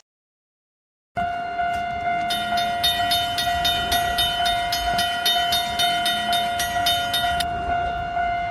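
Train horn sounding one long steady blast, starting about a second in and cutting off sharply at the end. From about two seconds in, a rhythmic clacking of about two and a half strokes a second runs with it, stopping about a second before the horn does.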